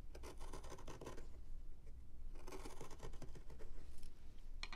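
Carving gouge slicing into the end grain of a wooden block, a dry crackly scraping in two short bouts, one at the start and one about two and a half seconds in, with a small click near the end. The cuts test whether the gouge's factory edge is sharp enough for end grain.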